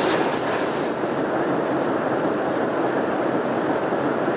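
Steady running noise of a moving passenger train, heard from on board.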